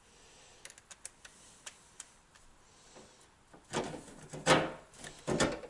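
Cordless drill driving a self-drilling screw through the sheet-metal wireway: a few light clicks as the screw is set on the bit, then, a little past halfway, three short loud spurts of drilling as the screw bites into the metal.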